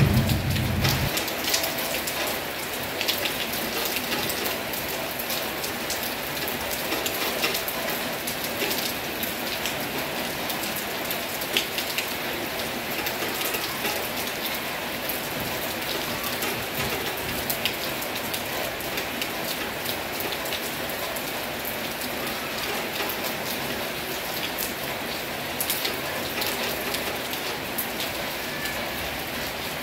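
Heavy rain falling steadily, with many close drops ticking sharply on a hard surface. A low rumble of thunder dies away about a second in.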